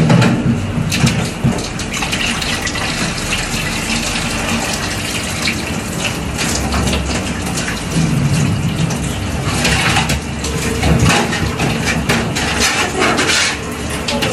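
Water running from a tap's hand-held shower hose into a utility sink, with irregular splashing as it rinses a dog.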